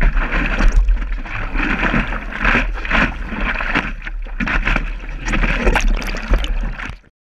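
Water rushing and splashing against a stand-up paddleboard, in irregular surges, with wind buffeting the board-mounted camera's microphone as a steady rumble. The sound cuts off suddenly near the end.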